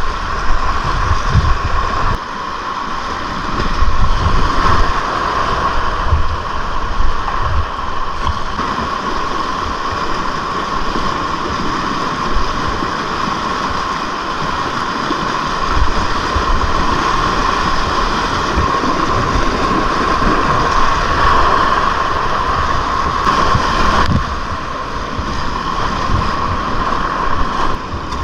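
Whitewater rapids rushing and splashing around a kayak, recorded close to the water, with wind and water buffeting the microphone in low thumps.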